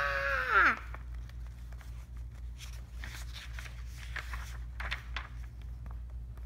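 A child's voice holds a high drawn-out sound that falls away less than a second in, followed by soft paper rustles and light taps as the large pages of a sketchbook are turned and handled.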